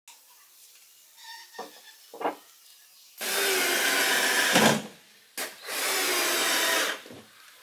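Cordless drill driving screws through a wooden rail into a plastic barrel: two runs of about a second and a half each, the first ending in a short thump. Two light knocks come before the drilling.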